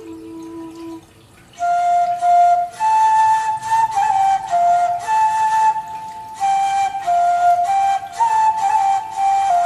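Background music: a flute-like melody of held notes stepping up and down, coming back in after a brief lull about a second and a half in.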